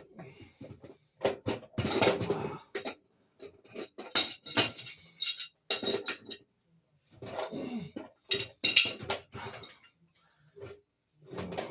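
Irregular metal clanking and clinking of tools on oil burner parts, in uneven bursts with short pauses between them.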